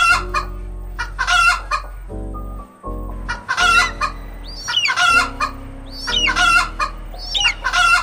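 Chickens clucking in short repeated calls, with small birds chirping now and then. Under them runs background music of sustained notes that change in steps.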